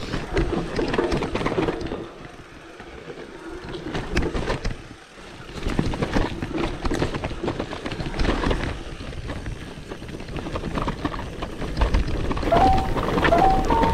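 Mountain bike riding down a rough dirt downhill trail: tyre noise with irregular knocks and rattles from the bike over bumps. Music comes in near the end.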